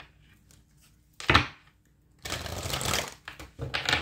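A deck of tarot cards being shuffled by hand in two quick rattling bursts, after a sharp knock about a second in.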